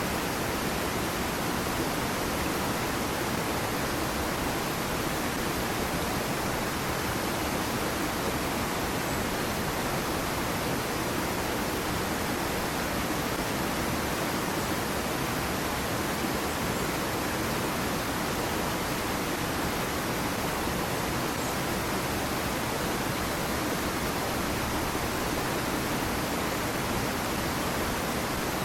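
Small waterfall on a stream, water falling and splashing in a steady, even rush.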